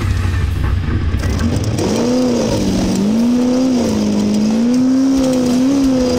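Engine of a single-seat Class 1 desert race car running hard, its pitch rising and falling repeatedly as the throttle comes on and off.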